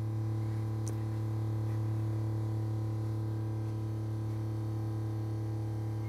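Steady low electrical hum with a stack of even overtones, unchanging throughout. The MX60 charge controller's strange noise is not part of it: the PV array is switched off.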